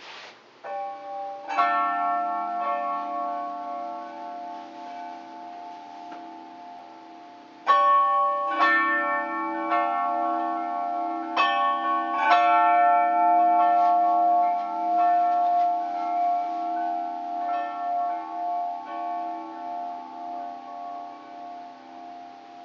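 Hanging metal tubular chimes struck by hand, in three groups of a few strikes each, the tubes ringing together in a chord. After the last strikes, near the middle, they keep ringing, slowly fading with a wavering beat.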